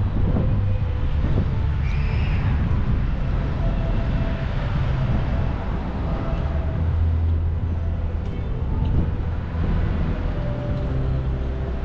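City street traffic: vehicle engines running close by with a steady low hum over a continuous wash of street noise.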